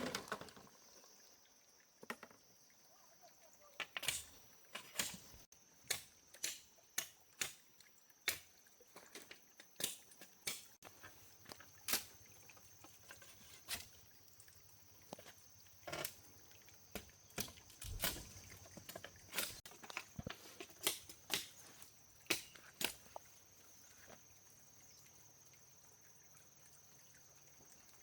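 A string of short, sharp light taps and clicks at irregular spacing, roughly one a second, that stop a few seconds before the end, over a faint steady high tone.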